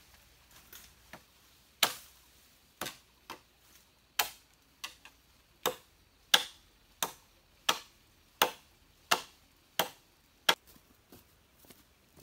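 Bamboo being chopped by hand: about a dozen sharp strokes, roughly one every 0.7 seconds, ending about two seconds before the end.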